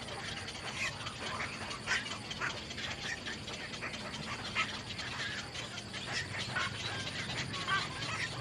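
Small birds chirping in quick, short calls throughout, over a low steady hum.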